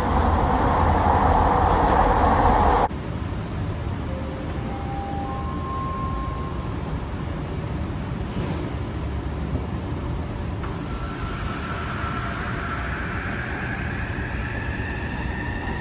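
SkyTrain rail noise: a loud rolling rumble that cuts off abruptly about three seconds in. A quieter steady hum follows, with three short tones about a second apart, each higher than the last. From about eleven seconds in, a whine rises steadily in pitch.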